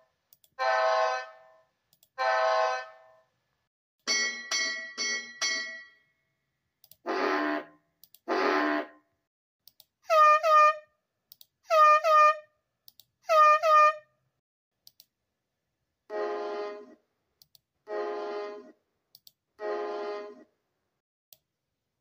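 A run of cartoon boat horn and whistle toots in groups from several different boats: three long blasts, four quick higher blasts, two lower blasts, three short louder blasts that each dip in pitch as they start, and three more blasts near the end.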